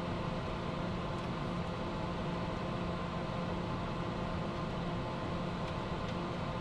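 Steady cockpit noise of a private jet climbing after takeoff: an even rush of airflow and engine noise with a low steady hum underneath.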